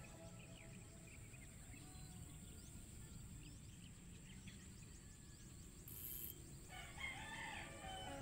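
A rooster crowing near the end, over a faint steady background noise.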